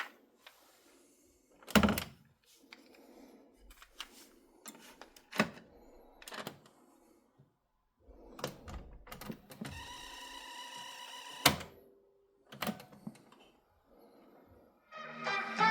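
Scattered knocks and clicks from handling and switching a vintage ITT Schaub-Lorenz Weekend 220 portable radio, with a brief buzzing tone about ten seconds in. Music starts near the end.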